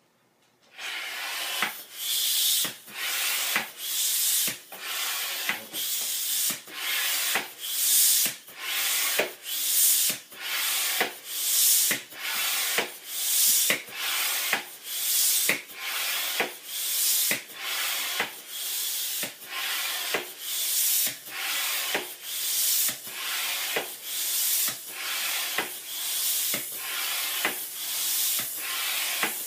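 Air being pumped into a balloon with an air pump: a rhythmic hiss of rushing air, pulsing about once a second as it is worked stroke by stroke, starting just under a second in.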